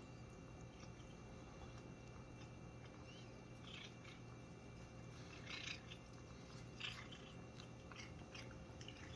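A cat chewing a blade of grass: a few faint, irregular crunching bites.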